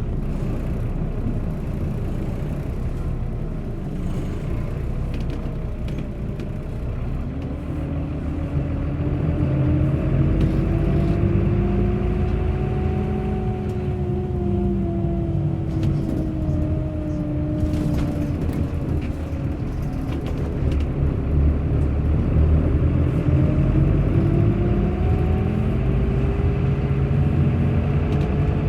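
Bus under way: a steady low engine and road rumble with a whining drivetrain tone that drops sharply at the start, rises slowly, falls away again and climbs once more in the last third.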